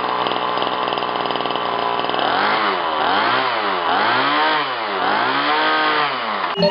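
Small 23/30cc single-cylinder two-stroke gasoline engine for a 1:5 scale RC car, running on a bench through a tuned muffler. It runs steadily at first, then is blipped up and down about five times, roughly once a second.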